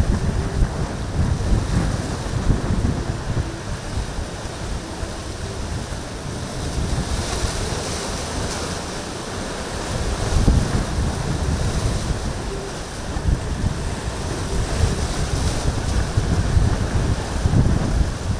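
Strong wind buffeting the microphone in uneven gusts, over the wash of choppy surf.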